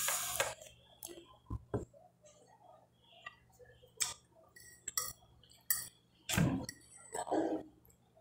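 Eating sounds: a fork clicking and clinking against a glass plate now and then as roast chicken is picked apart by hand, a few irregular clicks and one louder knock.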